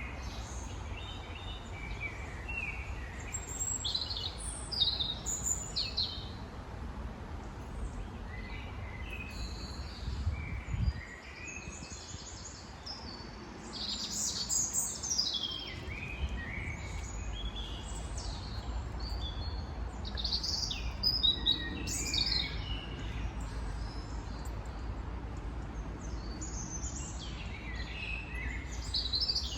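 Wild birds chirping and singing in repeated bursts of short, high calls and trills, over a steady low rumble.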